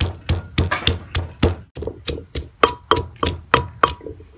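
Wooden pestle pounding chilies and garlic in a clay mortar, in steady strokes about three a second. Several strokes in the second half ring with a short tone.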